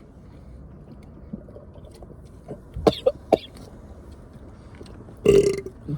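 A person coughing: a quick cluster of short coughs about halfway through, then one longer, rougher cough near the end.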